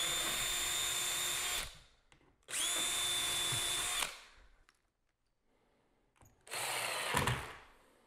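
Makita cordless drill with a self-centering bit, boring pilot holes into the wooden door jamb through the screw holes of a pocket-door strike plate. It spins up to a steady whine for about a second and a half, stops, runs again for a similar stretch, then makes a third, shorter run near the end.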